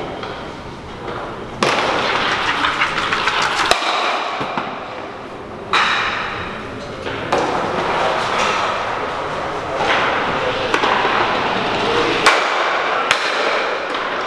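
Stocks (Eisstöcke) with summer soles sliding over the hard lane surface, each one a gritty hiss about two seconds long that starts suddenly; this happens several times. Sharp clacks sound a few times as stocks strike one another.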